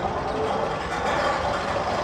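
Steady engine-like rumble, one of the sound effects from the Magnum XL 200 roller coaster's tunnel soundtrack.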